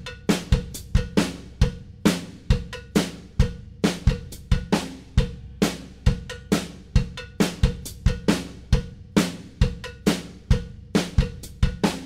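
A drum kit playing a steady beat on its own, kick and snare hits with hi-hat, as soundtrack music.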